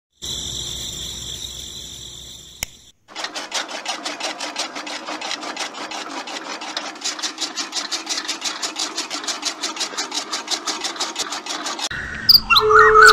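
Small electric motor of a homemade miniature chaff cutter whining steadily for a couple of seconds, then a click, after which the belt-driven cutter wheel runs with a rapid, even clicking over a low hum for about nine seconds. Loud music with a gliding melody comes in near the end.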